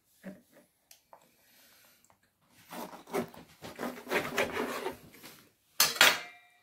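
Knife sawing back and forth through a rolled flour tortilla wrap onto a plastic cutting board, a scratchy scraping for about three seconds, then a sharp louder knock near the end.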